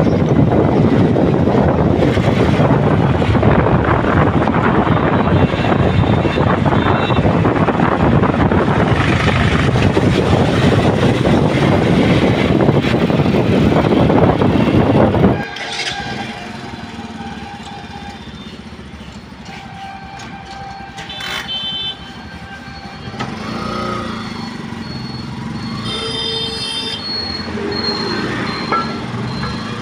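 Heavy wind on the microphone of a moving vehicle, mixed with road noise. About halfway through it cuts to quieter street traffic with a few short horn toots.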